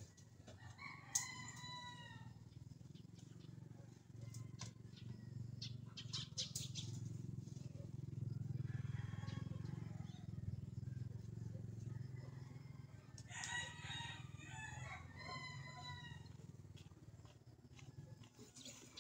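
Rooster crowing: one crow about a second in and a longer crow or two from about thirteen to sixteen seconds in, over a steady low hum.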